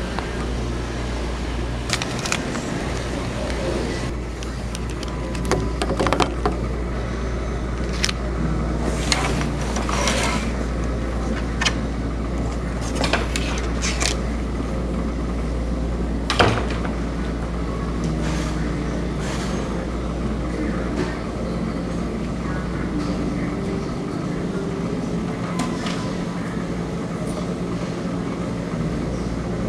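Coin laundromat machines running: a steady low hum from the rows of washers and dryers, with scattered clicks and clanks, the sharpest about 16 seconds in.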